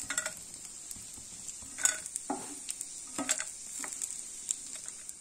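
Dried shrimp sizzling steadily in hot coconut oil while a metal spatula scoops them out of the frying pan. A handful of clinks and scrapes of the spatula against the pan and a steel plate sound over the sizzle.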